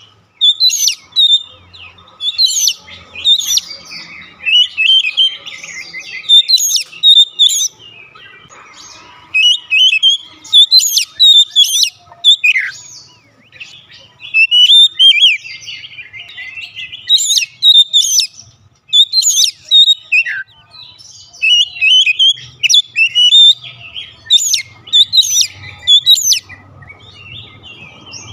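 Oriental magpie-robin singing: a steady run of loud, varied whistled phrases and chirps with only brief pauses.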